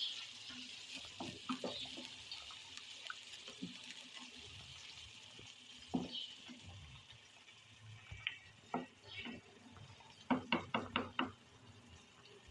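A wooden spoon stirring in an aluminium pot of boiling water, knocking against the metal sides now and then, with a quick run of about five knocks near the end, over a faint steady hiss.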